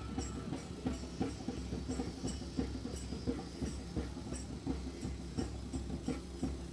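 A quick, even drumbeat of about three beats a second, steady throughout.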